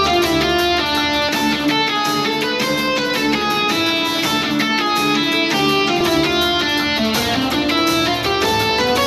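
Fast instrumental game music with guitar, played back through a portable Bluetooth speaker and picked up through the air by a microphone.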